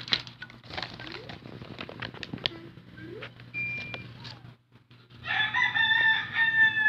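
A rooster crows once, a loud drawn-out call of about a second and a half starting about five seconds in, dipping in pitch at its end. Before it come light clicks and rustling from the carburetor and its plastic wrapping being handled.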